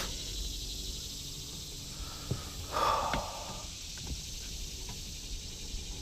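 Steady chirring of crickets and other insects, with one short breathy burst like a sharp exhale about three seconds in and a few light clicks.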